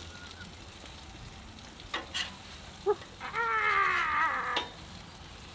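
Burger patties sizzling quietly and steadily on a Blackstone flat-top griddle, with a couple of sharp taps about two and three seconds in. Midway through, a high wavering whine, falling slightly in pitch, lasts about a second.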